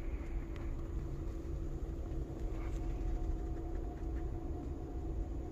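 Steady low rumble with a faint steady hum and a few light ticks.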